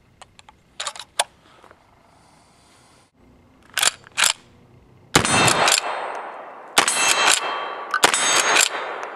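Uberti 1873 carbine in .44-40, a Winchester 1873 replica, firing black powder cartridges: three loud shots about a second and a half apart in the second half, each with a long trailing echo. Before them come light metallic clicks and two sharp clicks around four seconds in as the lever action is worked.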